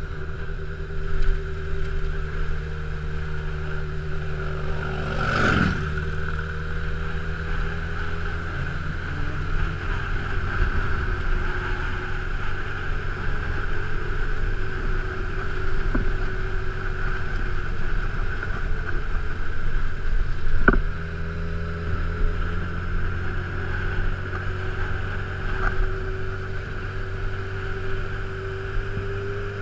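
Honda CB1000R's inline-four engine running steadily at cruising speed, with wind rushing past. Two sharp knocks stand out, about five seconds in and about twenty-one seconds in.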